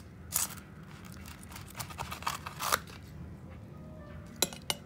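Scattered sharp clicks and light scrapes of metal kitchen tongs against a foil baking tray of roasted potato wedges, a cluster of them in the middle and two more near the end, over a steady low hum.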